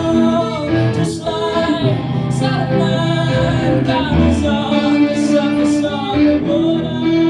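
A band playing a song, with a voice singing over the instruments.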